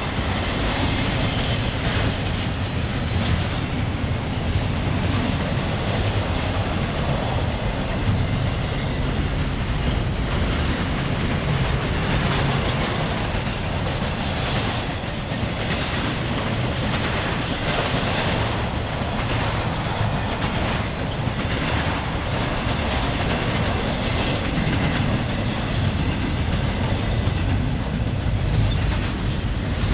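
Loaded double-stack intermodal freight cars rolling past at track side, a steady rumble and clatter of steel wheels on the rails.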